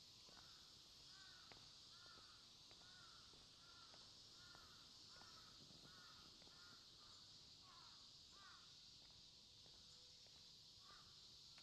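A crow cawing faintly in a quick run of about fifteen caws, roughly two a second, with two more caws near the end.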